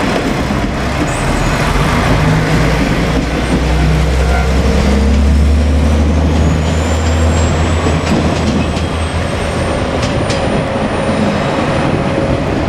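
KiHa 47 diesel railcar running close by, its diesel engine giving a loud low drone that is strongest about halfway through, with a thin whine rising in pitch over the second half and a few sharp wheel clicks near the end.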